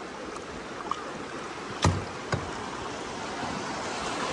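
Shallow river rapids rushing steadily around a kayak. A sharp knock comes a little under two seconds in, and a smaller one about half a second later.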